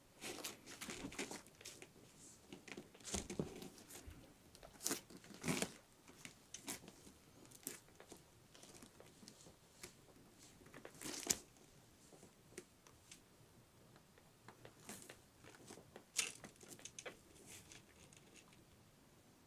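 Paper sheets rustling and crinkling faintly as a young kitten crawls over them, in irregular bursts with light clicks, the sharpest rustle about eleven seconds in.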